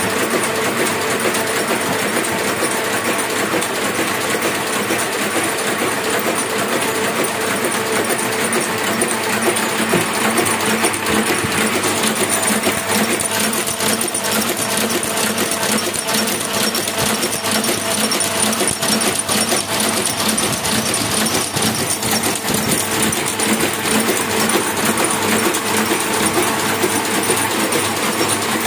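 A Hamada 600 sheet-fed offset printing press running at speed: a steady, fast, even mechanical clatter from its rollers and sheet-feed mechanism.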